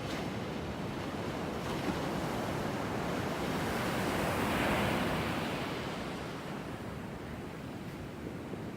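Pacific Ocean surf: small waves breaking and washing in at low tide, the rush swelling to a peak about halfway through and then fading away.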